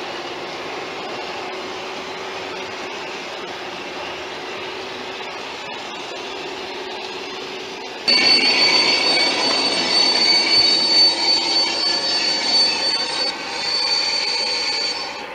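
Garden-scale model train running on its track: a steady hum and rolling noise. About halfway in, a much louder, steady high-pitched wheel squeal sets in over the rolling noise, with a brief dip before it fades near the end.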